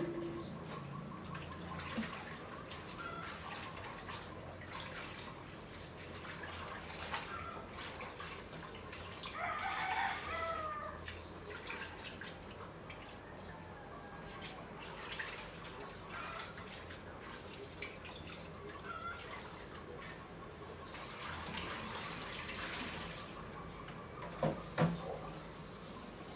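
Washing up at a kitchen sink, with tap water running and dripping. A rooster crows about ten seconds in, and two sharp clinks of dishes come near the end.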